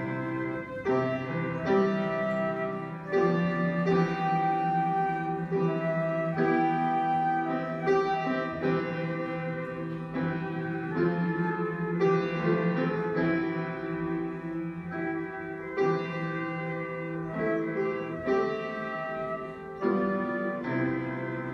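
Flute and grand piano playing a duet, the flute holding long notes over piano chords.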